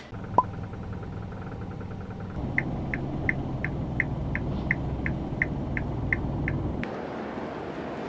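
Car engine and road rumble heard from inside a Kia Ray, with a steady run of short high electronic beeps, about three a second for some four seconds, typical of a parking sensor warning as the car manoeuvres in a parking garage. The rumble stops near the end.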